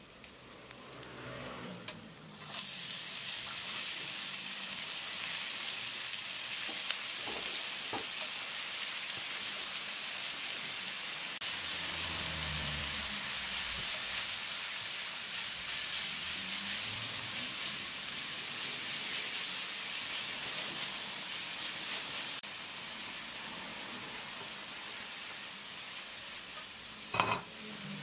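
Chopped leeks frying in hot oil in a nonstick frying pan: a steady sizzle that starts suddenly as they go into the pan, with a spatula stirring them through it. A single sharp knock near the end.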